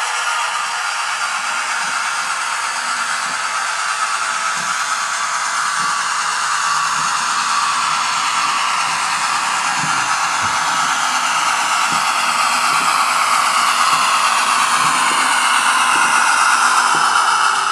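Model Class 08 diesel shunter with a DCC sound chip running on 00 gauge track, giving a steady whirring hiss with a faint shifting whine, growing gradually louder as it approaches. Faint clicks come from the wheels over the rail joints and pointwork.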